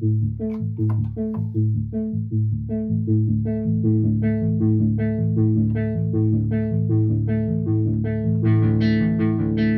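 Freshly serviced Sequential Circuits Prophet-600 analog polyphonic synthesizer playing a plucky, bass-heavy patch: quick repeated notes over held low notes. It turns much brighter about eight seconds in.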